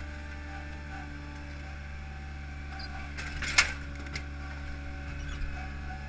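Hydromak paving machine's engine running steadily while its hydraulic boom works the paver clamp, with a single sharp clank a little past halfway as the clamp meets the stack of concrete pavers, and a lighter click soon after.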